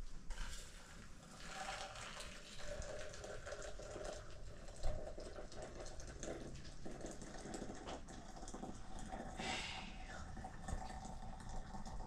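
Faint water sounds, running and splashing, with scattered light clicks and knocks.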